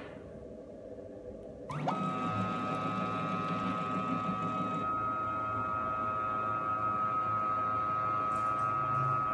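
NEMA23 stepper motor driving a left- and right-hand ball screw linear module. The motor starts about two seconds in with a steady whine of several tones while the two carriages travel apart along the screw.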